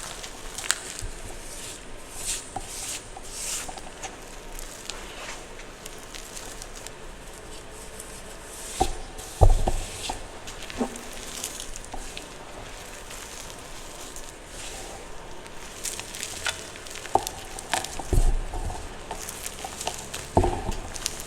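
Blocks of gym chalk being crushed, with many small crunchy crackles and a few heavier dull thumps as pieces give way, about nine seconds in and twice near the end.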